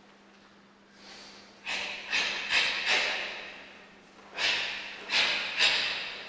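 A karateka performing kata: a series of sharp, forceful exhalations and snaps of the cotton gi, one with each technique. They come in two quick groups, four and then three, each dying away in the hall's echo.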